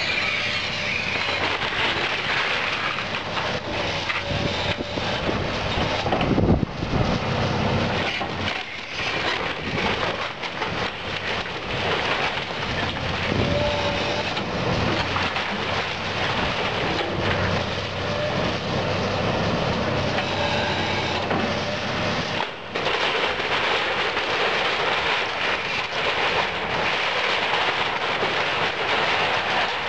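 Link-Belt 210 tracked excavator's diesel engine running under load while its bucket tears into a wood-frame house. Timber cracks and splinters continuously, and debris crashes down, loudest about six and a half seconds in.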